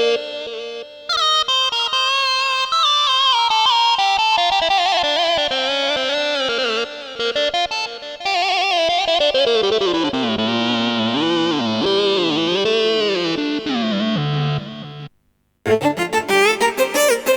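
Korg Krome keyboard playing a plucked-string ethnic patch from a sound pack: a winding melody that falls gradually from high to low notes. It stops briefly about 15 seconds in, and a new patch starts with fast repeated notes.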